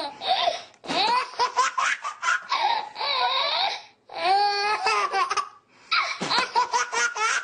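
A baby laughing hard in high-pitched belly laughs, in several bouts of rapid ha-ha-ha pulses with short gaps between them.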